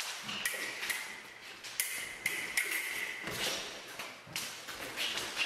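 Foil fencers' footwork on a metal piste: a quick, uneven run of taps, thumps and scuffs as they advance and retreat, with a few short high squeaks.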